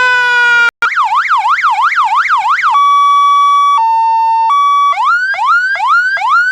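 Electronic siren through its loudspeaker, switching between modes. A slow falling wail cuts out a little under a second in. Then comes a fast yelp rising and falling about four times a second, then a two-tone hi-lo, then rapid rising sweeps repeating about three times a second near the end.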